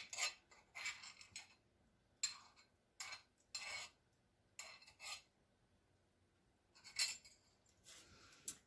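A utensil scraping cooked grits out of a cooking pot onto a plate: a faint series of short, uneven scrapes and clinks, with a pause of a second or so past the middle.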